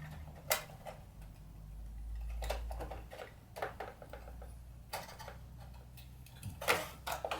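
Irregular plastic clicks and knocks, a few scattered and a cluster near the end, as the projector's lamp module is worked loose and lifted out of its housing.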